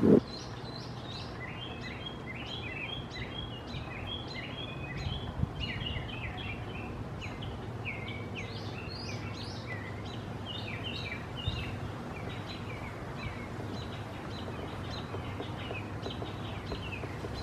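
Small birds chirping, a busy run of short high notes that thins out in the later part, over a steady low hum.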